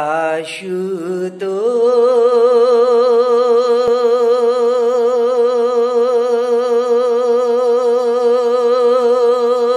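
A singer's voice, humming or singing one long held note with an even vibrato after a few short sliding notes in the first second and a half: the drawn-out opening of a Hindi devotional bhajan to Shiva.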